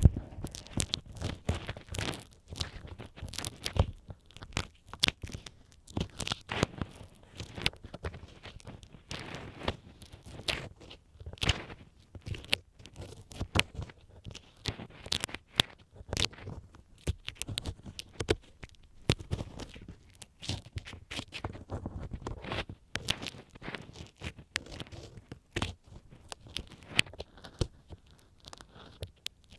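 Bamboo ear pick scraping and scratching inside a binaural microphone's ear: dense, irregular crackly scratches and small clicks.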